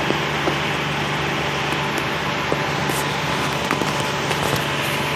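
Heavy rain pouring onto a paved road: a steady hiss with many small ticks of drops striking, over a steady low hum.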